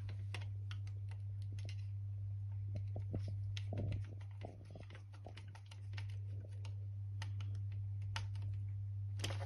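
Small irregular clicks and taps of a flat screwdriver and copper wires on a metal dimmer switch plate as the earth wire is secured in its earth terminal, over a steady low hum.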